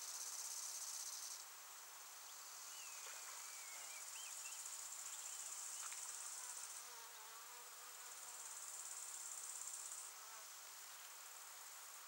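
High-pitched, steady insect song that runs in stretches of a few seconds and stops and starts several times. Fainter wavering calls sound underneath it in the first half.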